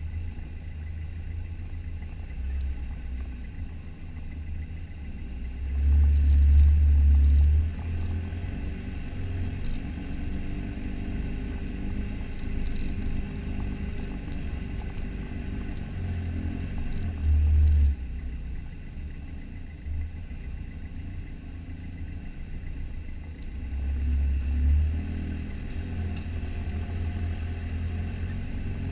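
Four-wheel drive's engine running at low speed as it crawls along a rough dirt track, a steady low rumble that swells louder three times for a second or two.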